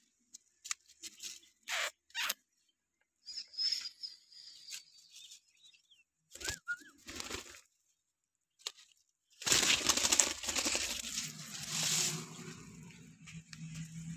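Leafy plant stems being handled and brushed, giving scattered soft clicks and short rustles, then a louder rustle that lasts about three seconds from a little past the middle.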